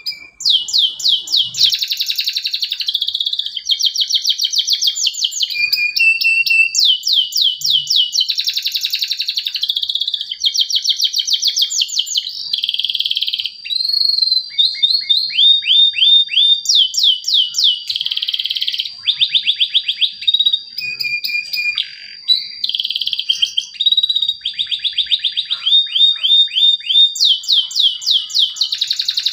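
Canary singing a long, continuous song: fast trills of rapidly repeated falling notes, one after another, broken by long held high whistles.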